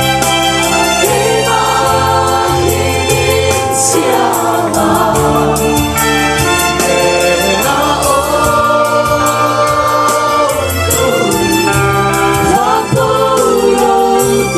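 Live gospel worship music: a group singing together with a band, over a steady bass line and a regular beat.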